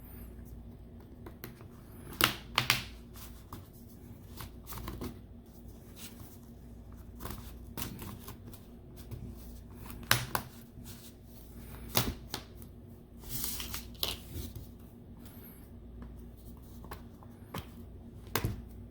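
The plastic back cover of a Samsung SM-T290 tablet being pried off with an opening tool: irregular clicks and scraping as its clip-on tabs come loose, with a few sharp snaps.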